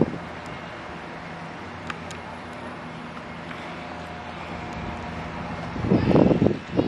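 Steady hum of road traffic, with a louder burst of noise about six seconds in.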